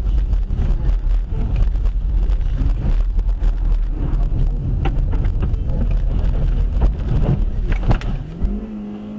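Loud low rumble and wind buffeting on a car's dashcam microphone as the car slides off a snowy road into a snow-covered field, with several sharp knocks from the car body as it bounces through the snow. Near the end the rumble cuts off and a steady hum takes over.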